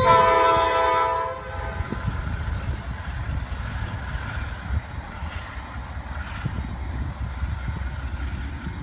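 A diesel locomotive horn sounds one short blast of a bit over a second, a chord of several tones. After it the passing freight's diesel locomotives keep up a steady low rumble.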